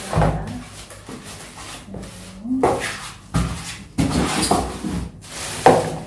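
Unpacking noise: styrofoam packing blocks pulled off and rubbing, the plastic bag around the vacuum cleaner rustling, and a few knocks against the table, in several separate spells.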